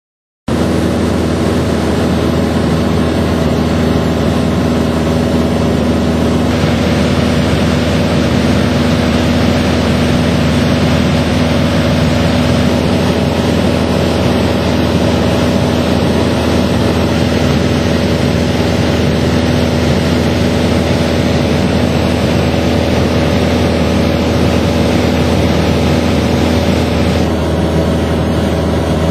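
Steady drone of a jet airliner's engines and rushing air heard inside the passenger cabin, a loud even hiss over a low hum with a few steady tones. The hiss brightens slightly a few seconds in and eases again near the end.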